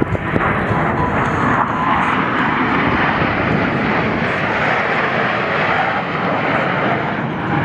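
Four F-16 Fighting Falcon fighter jets flying past low in tight formation, a loud, steady jet-engine rush that is fullest in the middle of the pass.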